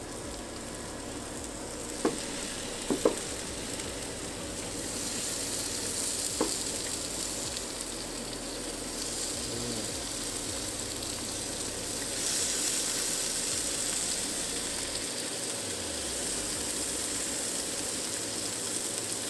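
Plant-based burger patties and meatless bacon strips sizzling on a hot flat-top griddle, a steady frying hiss that grows louder about five seconds in and again around twelve seconds. A few sharp clicks come in the first seven seconds.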